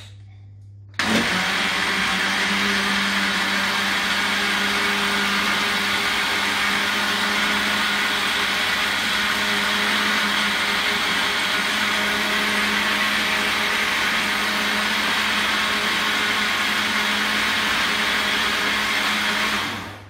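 Stainless-steel countertop blender motor running at a steady speed, mixing cornmeal cake batter. It switches on abruptly about a second in and runs down at the very end.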